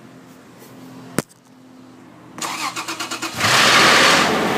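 Toyota FJ Cruiser's 1GR-FE V6 being started: a sharp click about a second in, then the starter cranks for about a second and the engine catches with a loud flare of revs that begins to settle. On catching it makes a momentary flapping noise, which the owner suspects comes from the valve train and which changing oil filters to rule out drain-back has not cured.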